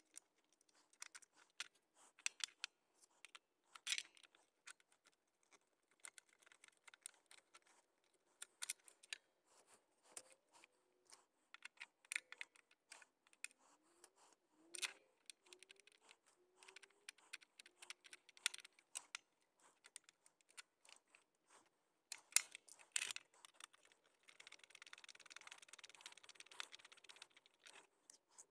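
Faint, rapid clicks, taps and rattles of a screwdriver and plastic mount parts being handled, sped up. A few brief squeaks come in the middle, and a stretch of steady scraping comes near the end.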